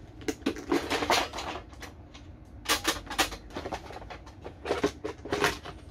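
Camping gear being handled and set down: three short spells of clattering knocks and rustling.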